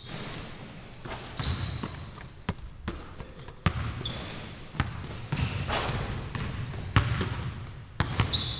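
Basketballs bouncing on a hardwood gym floor in sharp, irregular thuds, with sneakers squeaking in short high chirps between them.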